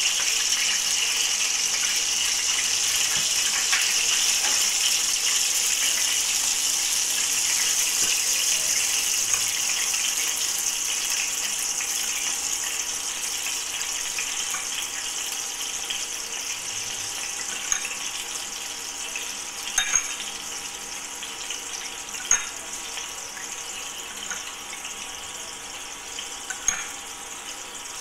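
A steady rushing hiss that slowly fades, with a few light clicks in the second half.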